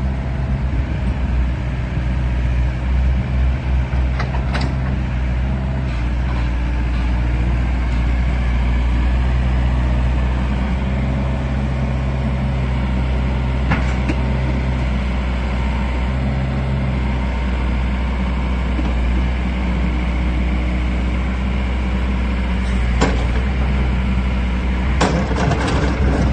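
Diesel engine of a Takeuchi TB175 wheeled excavator running steadily at idle. A few sharp clicks or knocks come over it, with several in quick succession near the end.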